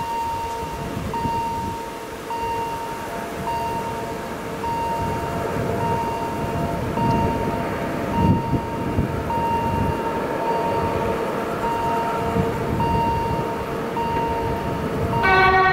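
A level crossing warning signal beeps about once a second over the low rumble of an approaching DR class 232 'Ludmilla' diesel locomotive. Just before the end, the locomotive's horn starts sounding loudly.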